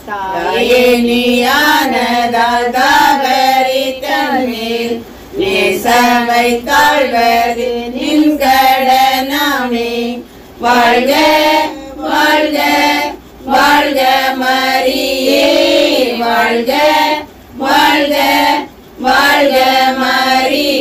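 Group of women singing a Tamil devotional hymn to Mary in short phrases, with brief pauses between lines.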